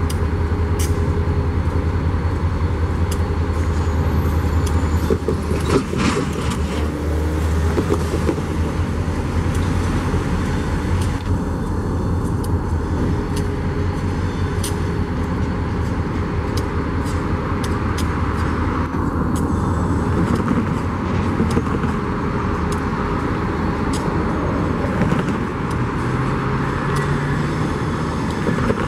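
Diesel locomotive engine running with a deep steady rumble that fades after several seconds, giving way to a steady rolling noise with scattered clicks.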